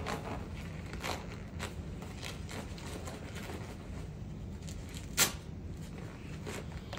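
Rustling of a chemical protective suit and rubber gloves as the wearer works the gloves on and moves his arms. There are a few soft clicks, and one sharp snap about five seconds in, over a low steady hum.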